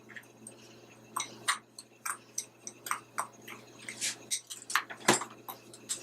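A utensil scraping and clicking against a bowl as coconut oil is mashed into a dry powder of ground rice and baking soda: quiet, irregular strokes a few times a second, with one sharper knock about five seconds in.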